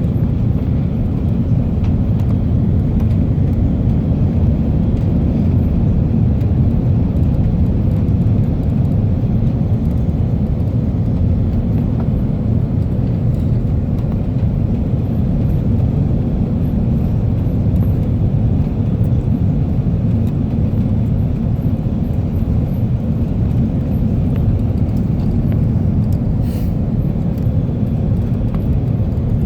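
Airbus A330 cabin noise: a steady low rumble of the engines and the air rushing past the fuselage.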